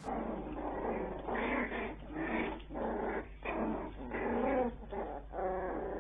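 Bichon Frise dogs grunting and whimpering in short repeated bouts, about one or two a second.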